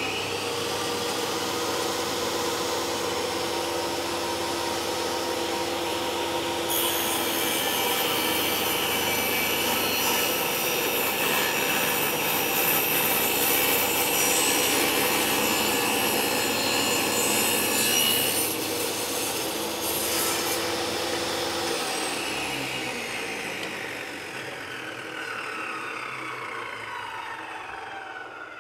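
Table saw running with its blade tilted to 45 degrees. About a quarter of the way in the blade bites into a wooden board and cuts a mitre for a dozen seconds. Then the motor is switched off and the blade winds down with falling tones.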